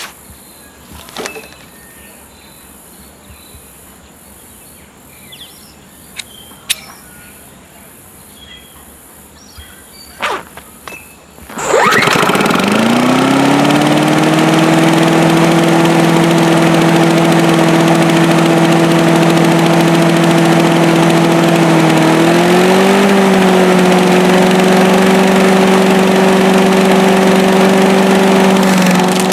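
After a quiet stretch with a few faint clicks, a Victa rotary lawn mower's engine starts about twelve seconds in. Its pitch climbs as it comes up to speed, then it runs steadily, stepping up slightly in pitch about ten seconds later.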